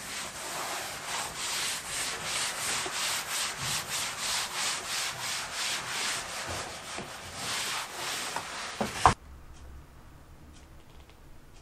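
Cloth wet with wax stripper rubbed hard back and forth over wooden flooring, scrubbing off old floor wax in a steady rhythm of about three strokes a second. A single sharp knock near nine seconds in, then the scrubbing cuts off abruptly.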